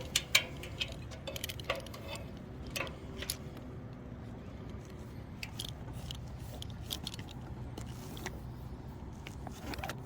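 Scattered light clicks and jangles of metal fall-protection hardware, carabiners and a rope grab on the anchor line, being handled while a rope knot is untied, over a steady low background hum.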